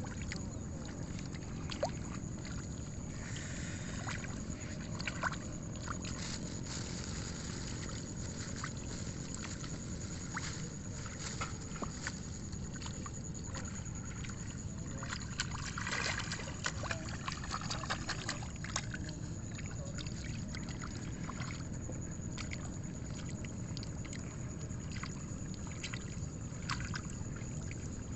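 Rice seedlings pulled by hand from a flooded seedbed, their roots swished in the muddy paddy water: repeated small splashes and sloshing over a steady low rumble.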